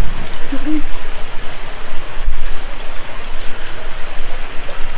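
Creek water running over and between rocks, a steady rushing, with a low thump about two seconds in.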